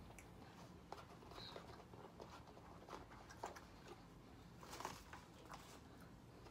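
Near silence: room tone with a few faint, short clicks and rustles, a small cluster of them a little before five seconds in.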